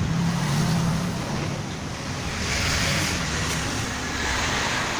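Portable air conditioner running on a direct switch connection, its compressor and fans on together: a steady rush of blown air over a low hum.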